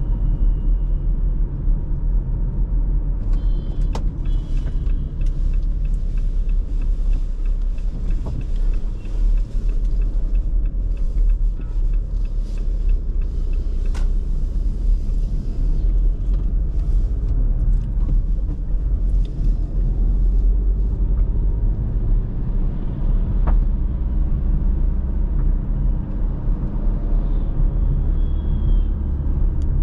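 A car driving steadily: a continuous low rumble of road and engine noise, with a few faint clicks.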